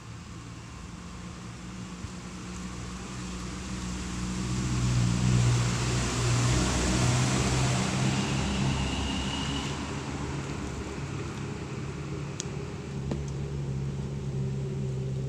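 An engine running with a steady low drone, growing louder over the first five seconds and loudest about five to eight seconds in, then easing slightly but staying on: a motor passing close by.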